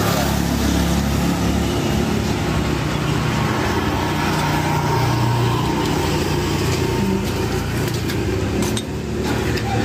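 Motorcycle and scooter engines passing along the road, a steady traffic noise.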